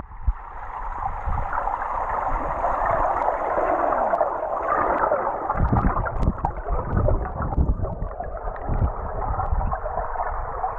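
Water sloshing and gurgling, muffled, with irregular low knocks that grow stronger from about halfway through.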